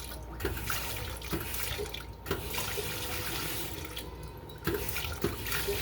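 Washing machine filling: water from the inlet valve runs into the drum, stopping briefly three times, with a few light knocks. The tub is already full, and the owner puts the overfilling down to the washer's water-level pressure switch.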